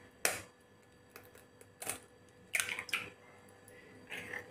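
A raw egg tapped against the rim of a glass bowl and its shell cracked open: a few sharp clicks and taps, in short groups a second or so apart.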